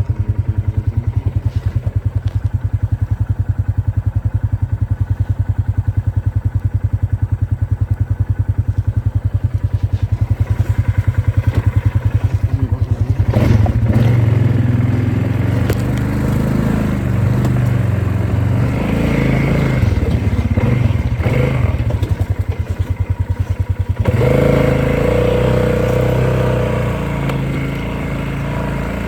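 Polaris off-road vehicle's engine running under way, a low even pulsing at first; from about halfway through it gets louder and its pitch rises and falls as the throttle changes, then settles to a steadier note near the end.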